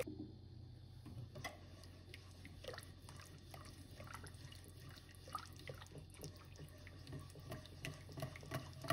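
Faint, irregular wet clicks and small plops as a milk-and-flour roux (béchamel) is stirred in a pot while it thickens.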